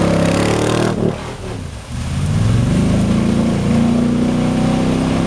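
Jeep 4x4 engine revving hard as it drives into deep mud water. The revs ease off briefly about a second in, then climb again and are held high while the Jeep ploughs through, with muddy water splashing.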